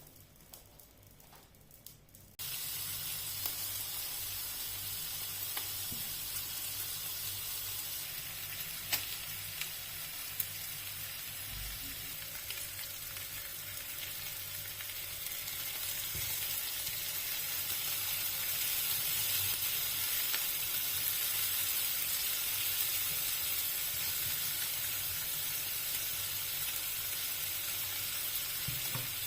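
Food sizzling in a hot pan: a steady frying hiss that starts suddenly about two seconds in, with a few sharp pops.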